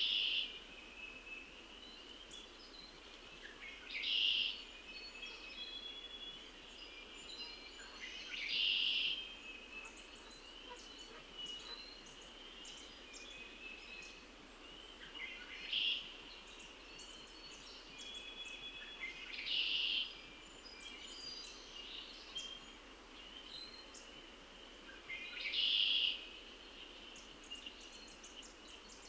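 A bird call repeated about six times, roughly every four to six seconds, each lasting under a second, over faint scattered chirping of other birds in the dawn chorus.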